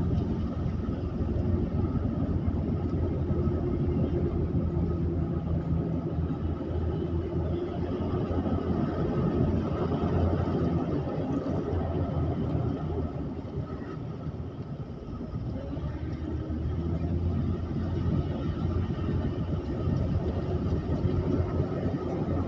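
Car engine and tyre noise heard from inside the cabin while climbing a winding mountain road: a steady low hum that eases off briefly about two thirds of the way through, then picks up again.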